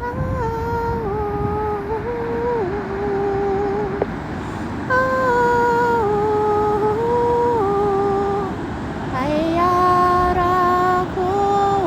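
A woman's voice humming a slow, wordless melody of long held notes that step up and down, over a steady rushing noise.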